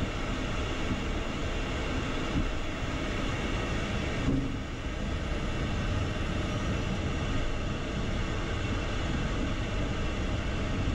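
Steady rumble and hum in the cockpit of an Embraer Phenom 300E taxiing slowly, its twin Pratt & Whitney Canada PW535E1 turbofans at idle.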